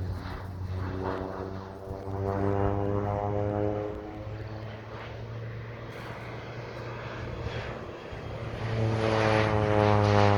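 Propeller-driven crop-dusting airplane making low spraying passes, its engine drone swelling and fading with a sliding pitch as it goes by, loudest about two seconds in and again near the end.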